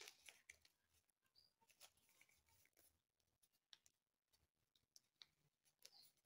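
Near silence with faint, scattered crinkles and clicks of a small sheet of paper being folded tightly by hand.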